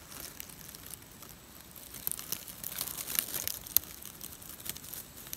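Dry grass and dead leaves of a fallen squirrel nest rustling and crackling irregularly as fingers poke and part the nest material.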